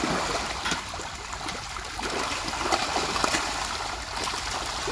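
Water trickling and lapping, with many small splashes and drips.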